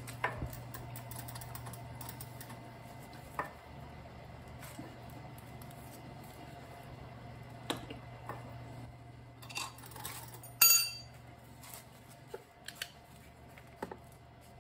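Metal tools clinking and knocking on an e-bike crankset as the crank arm bolt is tightened with a wrench: scattered sharp clicks, with one loud ringing metal clank about ten seconds in. A steady low hum runs underneath.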